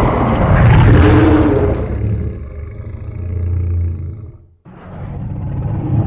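Godzilla roar sound effect for the 2004 Final Wars Godzilla: a loud, harsh roar that trails off over about four seconds. After a brief gap a new low rumbling effect starts.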